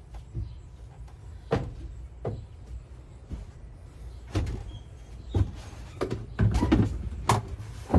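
Irregular knocks and clunks, about half a dozen, with some rustling between them; they come closer together and louder from about six seconds in.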